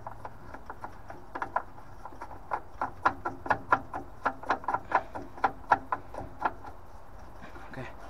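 A run of quick, irregular plastic clicks and ticks as a cap is worked onto a fitting at the flow turbine of a Worcester Greenstar Junior boiler, dying away after about six seconds with one last click near the end.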